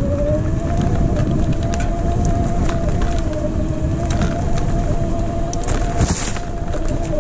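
A 24 V, 250 W rear hub motor run at 48 V whines at a steady high pitch under full throttle. Underneath are wind on the microphone and rattles and knocks from riding over rough ground, with a brief brushing hiss about six seconds in.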